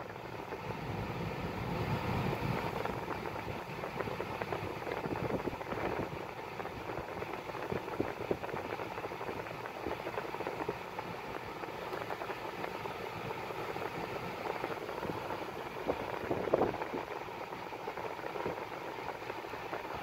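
Steady blowing hum inside the cabin of a VW Golf 7 running with its air conditioning on: ventilation air over the idling engine, while the A/C is cooling the evaporator.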